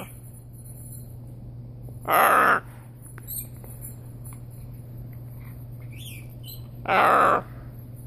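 Blue-and-gold macaw giving two short, harsh squawks, about two seconds in and again near the end, with a few soft chirps between them.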